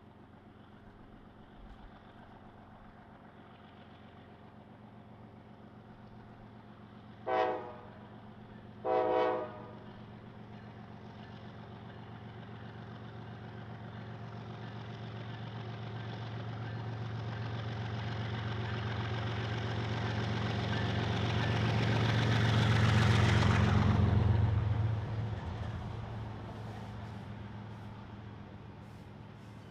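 Two CSX GE ES44AC diesel-electric locomotives approaching: two short blasts of the lead locomotive's multi-chime air horn, the second a little longer, then the engines' diesel drone swelling to its loudest as they pass close and dropping off suddenly, leaving the fainter rumble of the intermodal container cars rolling by.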